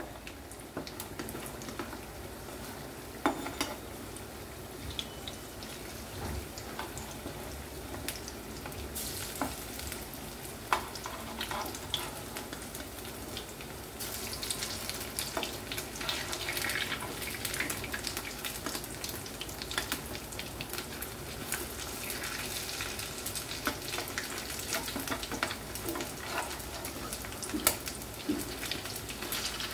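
Chopped goat-fat batter fritters sizzling and crackling in hot oil in a frying pan, the crackle growing busier about halfway through. A few sharp clicks come as a steel spatula turns them in the pan.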